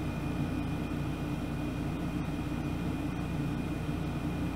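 Steady low hum with a faint hiss and a thin, high, steady whine: the background noise of the voice-over recording between spoken lines.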